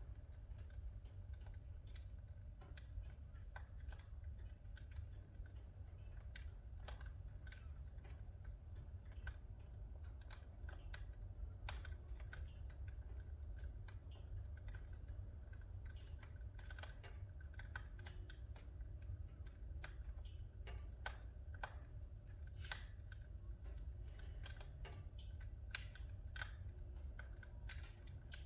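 Firewood crackling as it burns in a Leda wood-burning fireplace: irregular sharp pops and snaps, several a second, over a low steady rumble.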